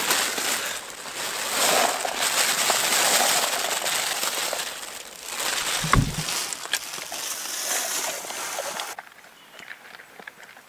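Dry dog kibble poured and shaken from a plastic bag into a fabric collapsible bowl, a rushing rattle with plastic rustling and one dull thump partway through. Near the end it drops to faint crunching ticks as the chocolate Labrador eats from the bowl.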